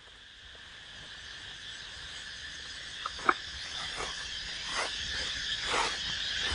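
Crinkling and crackling of a plastic bag as an earth auger's engine unit is lifted out of it. Under it, a steady insect chorus fades in.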